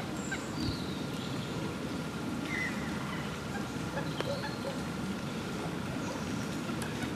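Steady low rushing background with scattered faint, short bird calls.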